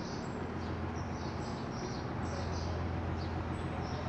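Small birds chirping in quick repeated bursts over a steady low hum of street background.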